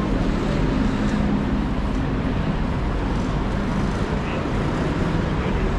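Steady city street traffic: motor vehicles running along the road, with a low engine hum in the first couple of seconds.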